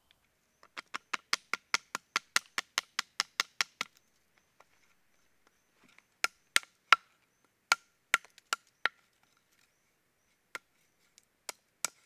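Twigs in a freshly lit campfire crackling with sharp pops. There is a quick regular run of about five pops a second for roughly three seconds, then scattered, louder single pops.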